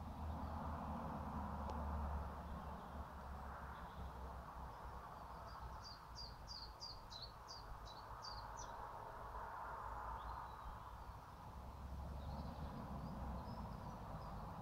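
A small songbird sings a run of about ten short, high chirps at about three a second, starting about six seconds in and lasting about three seconds, over a steady low outdoor rumble and hiss.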